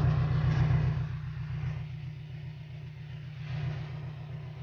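Fire truck's engine running with the cab tilted up and the engine bay open: a low rumble, louder in the first second or so, then settling to a steady, lower run.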